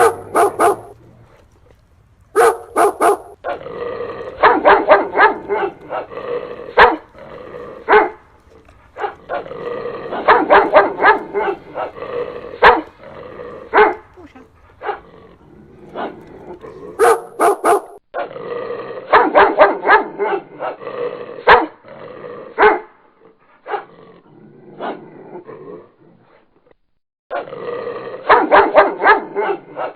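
Dogs barking in repeated volleys of quick barks, with short pauses between the volleys.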